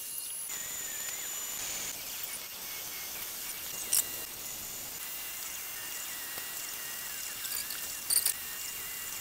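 MakerBot Replicator 2 3D printer running a print, its stepper motors whining in a thin tone that wavers in pitch as the extruder moves, over a steady fan hiss. Brief clicks come about four and eight seconds in.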